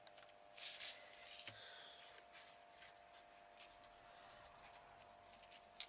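Near silence with a few faint rustles and light clicks of the canvas being bent back by hand, over a faint steady hum.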